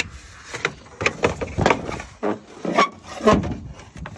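A quick, irregular run of knocks and clunks from parts being handled around a pickup's radiator and fan shroud, about a dozen short strokes over four seconds.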